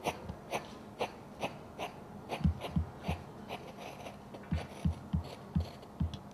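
PyroMoravia 'Fantasy Show' outdoor firework fountain giving off a run of irregular sharp pops and crackles, about two or three a second, each with a short low thump.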